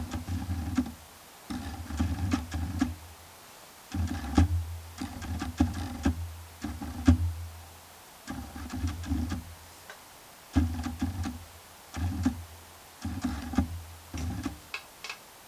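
Background music with a low bass line and percussive clicks, playing in short phrases with brief pauses between them.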